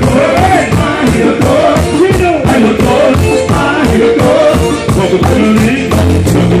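Live merengue band: a male lead singer sings over accordion and a fast, steady percussion beat.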